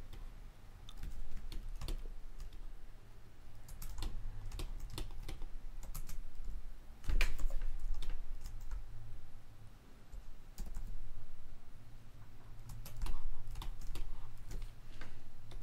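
Computer keyboard keystrokes: scattered, irregular clicks over a low steady hum.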